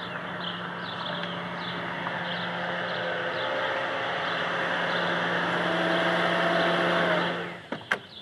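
A car drives up, its engine and tyre noise growing steadily louder, then the engine note drops and the sound dies away quickly about seven seconds in as the car stops. Two sharp clicks follow near the end as a car door is opened.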